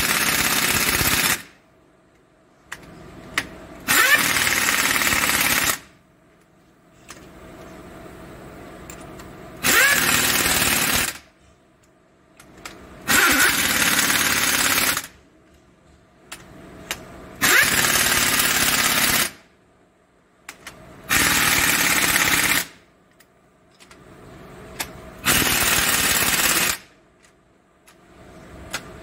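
Impact wrench hammering cylinder head bolts down on a WD615 diesel engine in seven bursts, each one to two seconds long, about every four seconds, with small clicks between as the tool moves from bolt to bolt. This is the bolts being run down with the gun before they are tightened evenly by hand wrench.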